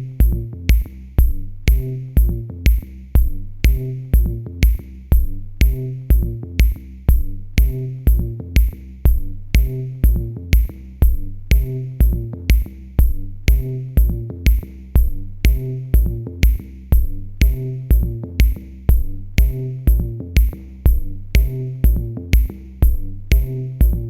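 Electro dance music: a steady drum-machine kick at about two beats a second, with a synth bass line and a high hi-hat-like tick on each beat.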